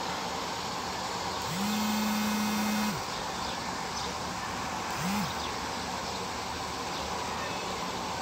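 A phone vibrating for an incoming call: one buzz of about a second and a half, then a short buzz a few seconds later, over a steady hiss.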